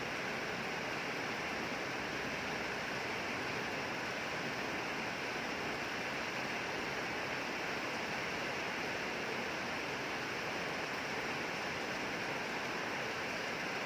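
Rain falling steadily: an even hiss with no single drops standing out.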